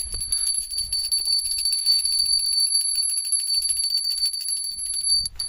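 Small hand bell rung rapidly and continuously: a steady high ringing over fast clapper strikes, cutting off shortly before the end.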